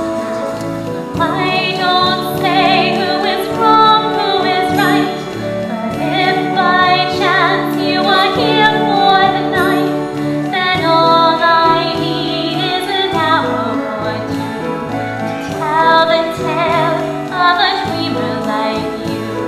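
A woman's solo voice singing a show tune with vibrato over a sustained instrumental accompaniment, recorded live in a theatre.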